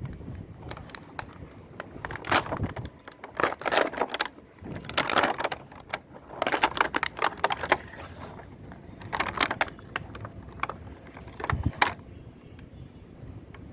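Plastic packaging crinkling and small plastic toy pieces clicking as they are unpacked and handled, in irregular bursts.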